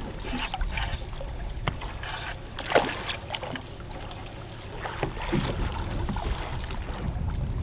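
Wind and sea noise on an offshore fishing boat at sea, with a low rumble and a few short splash-like noises about two and three seconds in.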